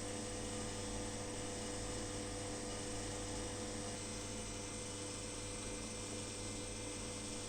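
Steady electrical hum made of several fixed tones, over an even hiss.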